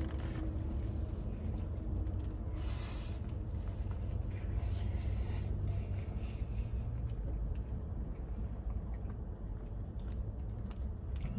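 A man chewing a mouthful of roast beef sandwich, with faint small mouth clicks and ticks, over a steady low background rumble.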